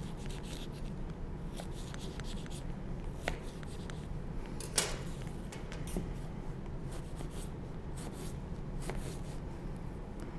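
Knife dicing an Asian pear on a cutting board: irregular light chopping taps, with one louder knock about five seconds in.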